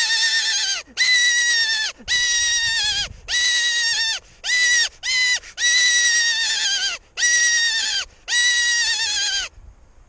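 Mouth-blown game call (lockpipa) sounded close by in a series of about nine drawn-out, wavering calls, two of them short in the middle, imitating an animal's cry to lure in game such as roe deer.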